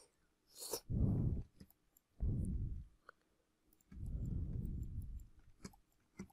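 Scattered computer mouse clicks, with a few louder, low, muffled puffs on the microphone between them.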